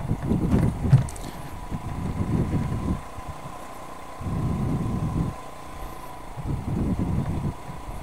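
Motorcycle engine running, rising and easing off in swells about every two seconds as the throttle opens and closes, with a thin steady high tone underneath.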